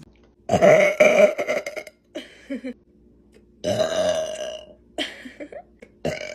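A woman's loud burps: two long ones lasting about a second each, with shorter burps between them and one more near the end.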